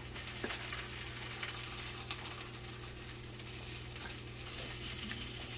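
Faint crackle of oil sizzling in a frying pan over a steady low hum.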